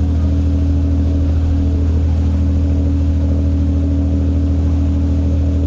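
Passenger ferry's engine running steadily under way, a constant low drone with a deep, even hum.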